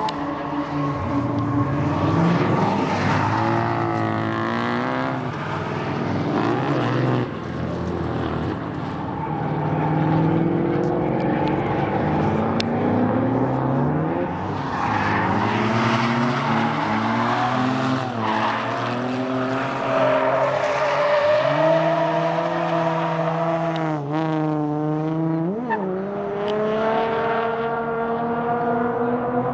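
Drift cars at full throttle, their engines revving up and down again and again through the corners, with tyres squealing as the cars slide. About 24 seconds in, the engine note drops sharply, then sweeps back up.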